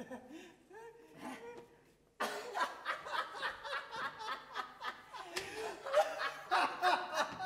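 People laughing and snickering. The laughter is faint for the first two seconds, then breaks in loud and abruptly about two seconds in, in quick repeated pulses.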